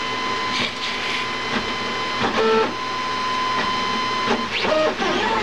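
Printrbot Go Large V2 3D printer running a print: its stepper motors whine as the print head moves. The whine holds one steady tone, then briefly jumps to other pitches about two seconds in and again near the end.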